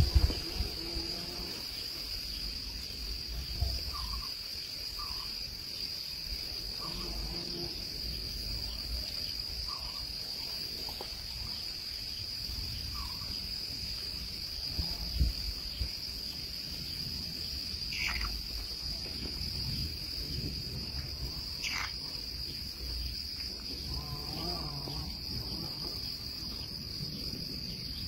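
Steady, unbroken high-pitched insect drone of crickets or cicadas, over a low rumble. Two short falling calls cut through it in the second half.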